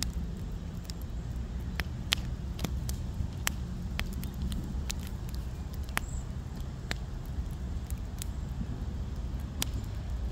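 Wood fire in a fire pit crackling, giving irregular sharp pops, about one or two a second, over a steady low rumble.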